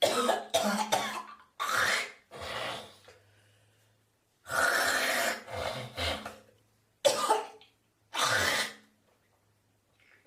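A person coughing hard in repeated fits and clearing the throat: clusters of harsh coughs with short pauses between them.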